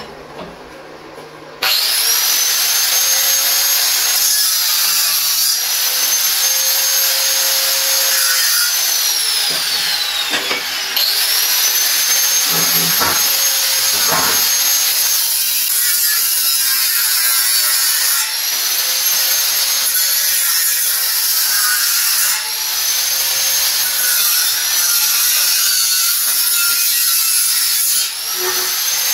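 Angle grinder with a cutting disc cutting through scrap steel, a loud steady hiss of the cut. The motor whine rises and levels off each time it is started, about six times, and winds down once near the middle.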